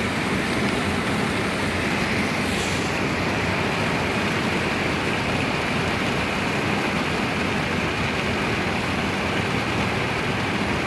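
Heavy rain together with a car driving on a wet road: a steady, even rushing noise.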